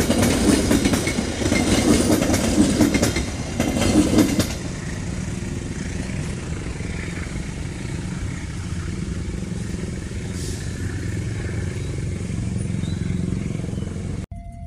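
Passenger train coaches passing close, their wheels clattering rhythmically over the rail joints. After about four and a half seconds this gives way to a steadier, quieter rumble as the train recedes down the line.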